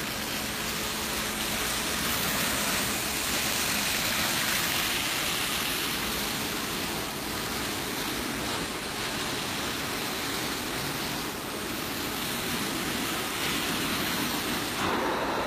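Truck-mounted carpet extraction vacuum running: a steady rushing hiss of air and water being drawn through the hose. Its tone shifts slightly just before the end.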